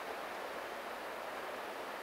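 Steady, even rushing noise with no distinct events or tones, the sound of an outdoor setting such as running water or wind through trees.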